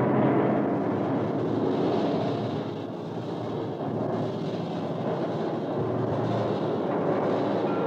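Experimental noise music: a dense, low, machine-like noise texture with faint held tones and no beat, swelling up at the start and then holding steady.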